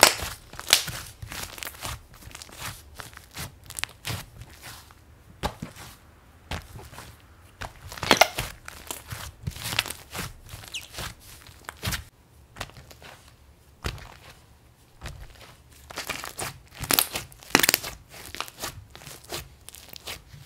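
Thick yellow slime kneaded and squeezed by hand, making an irregular run of squishy crackles and pops, with louder bursts of crackling about eight seconds in and again near the end.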